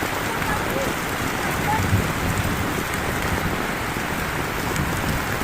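Heavy rain falling steadily and evenly, with a few faint short chirps now and then.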